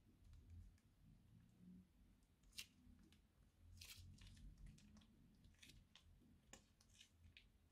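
Faint, scattered crackles and soft squelches of slime being squeezed from a plastic piping bag into a bamboo bowl, the bag crinkling in the hand.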